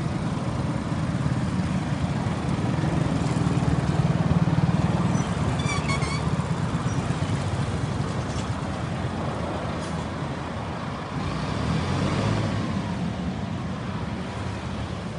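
Kubota tractor's diesel engine running steadily while the tractor drives, swelling a little louder a few seconds in.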